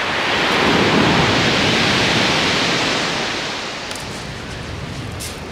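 A wave breaking and rushing up a steep shingle beach in a rough sea. The hiss swells over about a second and dies away over the next few seconds.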